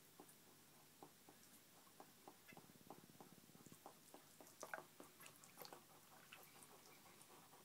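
Faint, irregular small clicks and soft snuffling from a wet hedgehog on a towel, with a short run of rapid snuffles about two and a half seconds in.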